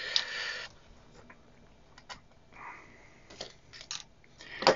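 Scattered light clicks and ticks as a small electric screwdriver and loose screws are handled on a workbench, with the sharpest click just before the end. A short breathy rush opens the sound.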